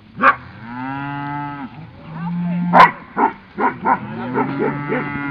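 Highland cattle mooing: three long, loud calls, the first and last rising and then falling in pitch, the middle one low and steady. Several short sharp sounds break in between them, the loudest about three seconds in.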